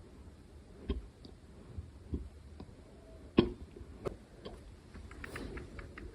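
A person hiccuping quietly, held back: a short hiccup about a second in and a louder one about three and a half seconds in, with a few fainter jolts between. Small clicking mouth sounds come near the end.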